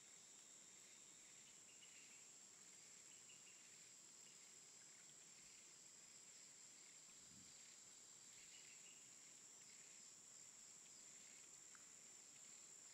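Near silence: faint outdoor ambience with a steady high-pitched insect-like tone and a few faint chirps.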